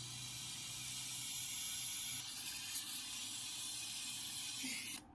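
Brazing torch flame hissing steadily while a broken refrigerator capillary tube is being welded. The hiss cuts off abruptly near the end.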